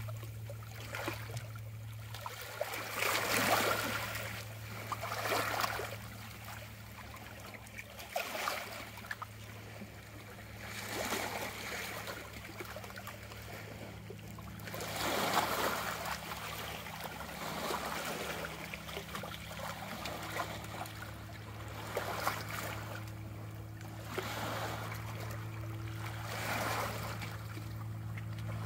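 Small waves of the Chesapeake Bay lapping and trickling against shoreline rocks, coming in uneven swells every few seconds, over a steady low hum.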